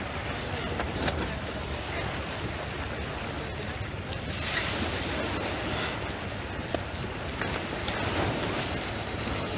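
Small waves washing onto a pebble beach, with wind on the microphone; the wash swells a little louder about halfway through.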